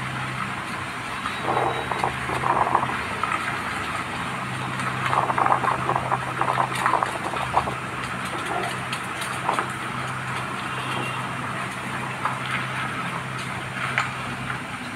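A vehicle's engine running steadily while driving, a constant low hum, with irregular clattering over it that comes and goes.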